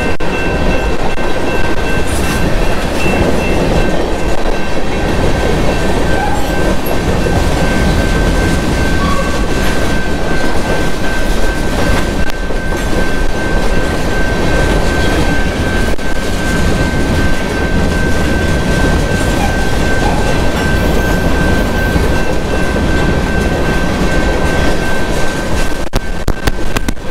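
Freight train of covered hopper cars rolling past close by: a loud, steady rumble of wheels on rail, with a constant high whine running above it.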